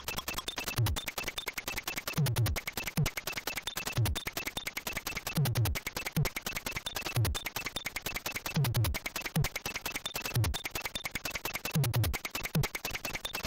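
Commodore 64 SID chip music in a drum-led passage: kick drums that sweep down in pitch hit in a repeating pattern over fast, hissy noise-channel hi-hat ticks, with little melody.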